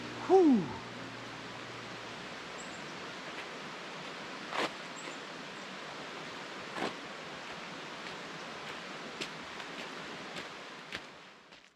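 Steady outdoor background hiss in a wet forest, with a short falling pitched sound about half a second in and a few sharp clicks. Near the end come footsteps on a gravel road, drawing closer.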